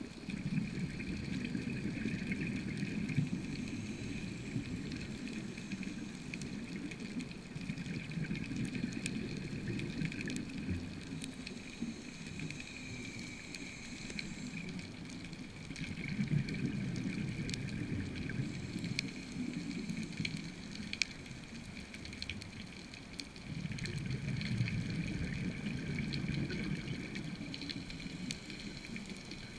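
Underwater sound of a scuba diver breathing through a regulator: exhaled bubbles rumble in long bursts about every seven to eight seconds, with faint crackling clicks throughout.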